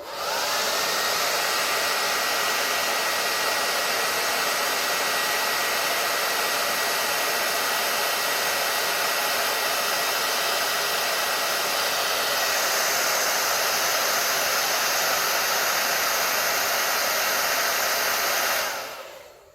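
Handheld electric hot-air blower running steadily, blowing hot air onto a smoke alarm's heat sensor to set it off. Its motor whine climbs as it starts, and it shuts off and winds down near the end.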